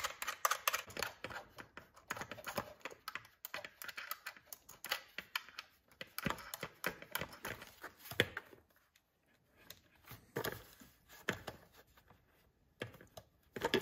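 Irregular light clicks and taps of small nuts and bolts being handled and threaded by hand onto the mounting bolts of a plastic fuel tank on a string trimmer, with a short lull a little past the middle.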